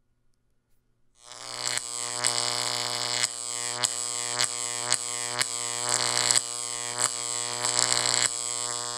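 Electrical buzzing sound effect of high-voltage equipment: a loud, steady mains hum-like buzz with sharp crackles every half second or so. It starts about a second in.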